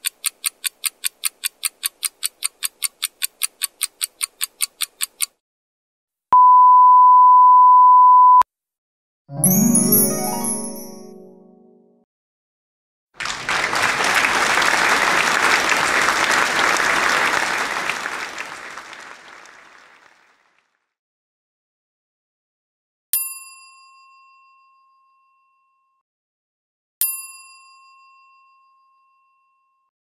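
A run of stock sound effects. Clock ticking, fast and even, stops about five seconds in. Then come a single steady censor bleep of about two seconds, a short chiming magic-spell swoosh, a crowd clapping that fades out over several seconds, and a desk bell struck twice, each ding ringing on.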